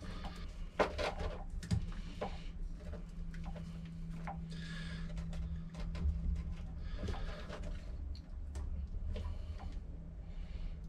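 Hands handling the wiring and hoses around a 12 V boat live well pump: scattered small clicks and taps of plastic and wire, over a faint low hum that stops about six seconds in.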